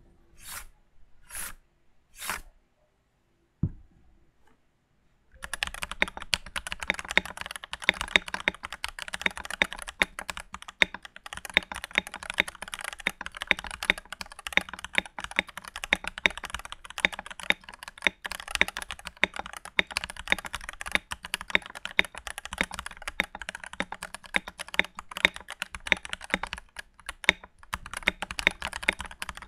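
Typing sound test on a stock Keychron V1 mechanical keyboard fitted with Keychron K Pro brown tactile switches, in a foam-dampened plastic case. A few separate key sounds come first, then fast, continuous typing starts about five seconds in.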